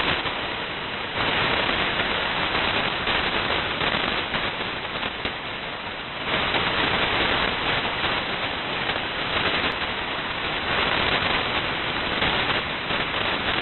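Shortwave static: band noise hissing from a KiwiSDR software-defined receiver tuned to 8992 kHz upper sideband, with no transmission on the channel. The hiss gets louder about a second in and again about six seconds in.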